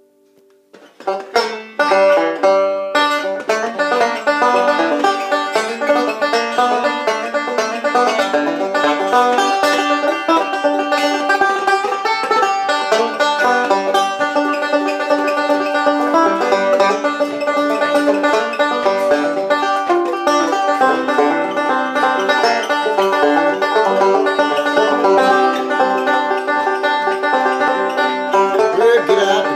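Resonator banjo played solo with fingerpicks, a fast, steady stream of picked notes, starting about a second in.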